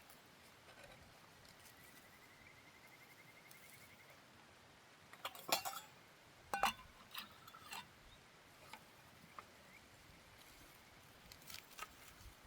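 Camp cookware and utensils clinking: two sharp ringing clinks about five and a half and six and a half seconds in, then a few lighter taps. A faint high pulsing trill sounds about two seconds in.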